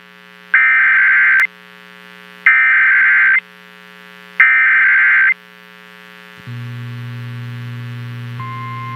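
Emergency Alert System SAME header broadcast over the radio: three loud, buzzy data bursts of about a second each, two seconds apart. A steady low hum follows, and near the end a steady high alert tone begins, the tone that comes before the tornado warning.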